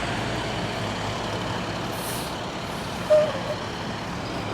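Vehicle engine running steadily, with a brief hiss about two seconds in and a short squeak just after three seconds.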